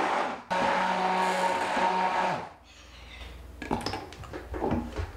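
Electric blender puréeing poached dried pollock with oil into a thick, mayonnaise-like emulsion. It runs steadily, cuts out for a moment just after the start, then switches off and spins down about two and a half seconds in. A few light knocks and clicks follow.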